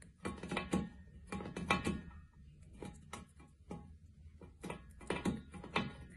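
Cat licking and mouthing a hard white plastic object: an irregular run of wet tongue clicks and smacks, about three or four a second.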